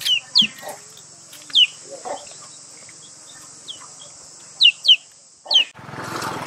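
A bird calling with about six short, loud whistles, each sliding downward, over a steady high-pitched insect drone. Near the end the drone cuts off suddenly and a steady rushing noise takes over.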